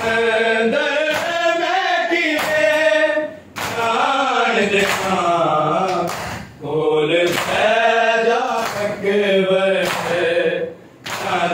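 Men's voices chanting a Shia mourning lament (noha) in phrases of about three seconds with short breaks between, over sharp rhythmic slaps of a crowd of men beating their chests (matam).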